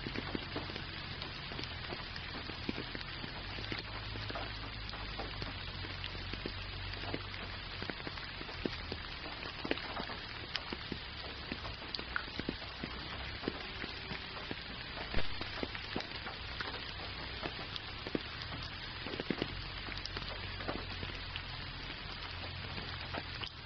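Gentle rain falling steadily, with many close individual drops ticking sharply and one louder drop hit about fifteen seconds in, over a low steady rumble.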